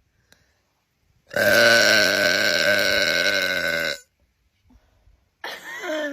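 A woman's long, loud burp, close to three seconds, starting about a second in.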